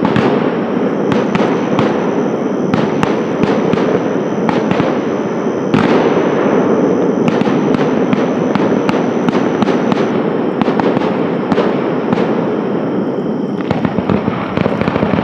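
Fireworks grand finale: a dense, continuous barrage of aerial shell bursts and crackle, with many sharp bangs overlapping and no break between them.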